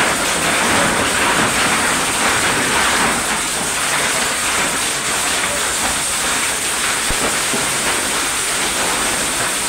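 Heavy rain mixed with hail pelting wet paving: a loud, steady, dense hiss of falling water, peppered with countless small hard impacts.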